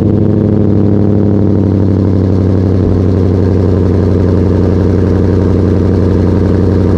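Ford Mustang Boss 302's 5.0 L V8 idling on a cold start through freshly installed Roush axle-back mufflers. The fast idle eases down slightly in the first second, then holds steady with a deep exhaust note.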